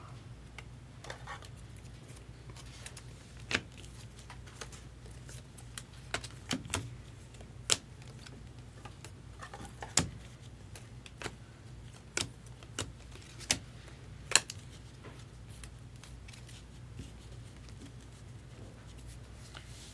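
Stiff chromium trading cards being handled and slid one by one off a stack, giving scattered sharp clicks and snaps at irregular intervals, over a low steady hum.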